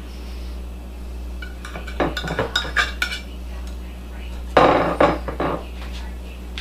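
A metal knife scraping and clinking against a glass baking dish as fudge pieces are pried out. It comes in two bunches of short knocks and scrapes, about two seconds in and a louder one about four and a half seconds in. A steady low hum runs underneath.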